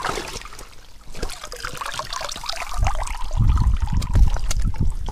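Water pouring and dripping out of a mesh keepnet holding crucian carp as it is lifted out of the water. About three seconds in, louder dull low thuds and rubbing take over as the wet net is brought against the side of the inflatable boat.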